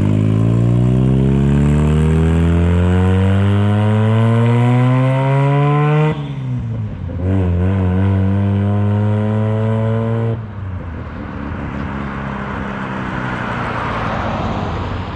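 A 1983 Mazda RX-7's 12A rotary engine accelerating through the gears. Its pitch climbs steadily for about six seconds, drops at an upshift, then climbs more gently. About ten seconds in it falls away suddenly as the throttle is lifted, leaving steady road and engine noise.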